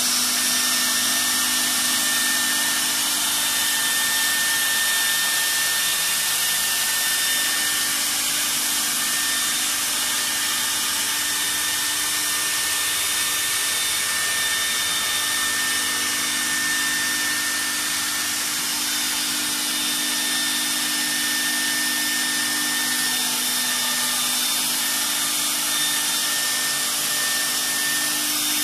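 CNC router spindle running, a steady high-pitched whine over a loud hiss, with a lower hum underneath.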